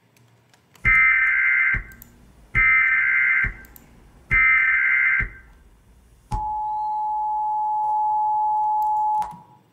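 US Emergency Alert System alarm: three short bursts of SAME header data, each about a second long, then the steady two-tone attention signal held for about three seconds before cutting off.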